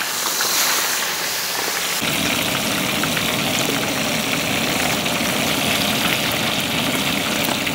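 Chicken pieces deep-frying in a large pot of hot oil: a steady sizzling hiss. About two seconds in, a low steady rumble joins underneath it.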